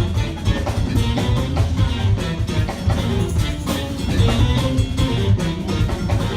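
A funk band playing live: a driving drum kit groove with a busy electric bass line and electric guitar on top.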